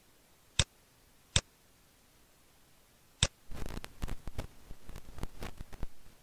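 Three single sharp clicks of a computer mouse, spaced about a second apart, then a quick, irregular run of clicks and ticks lasting about two and a half seconds.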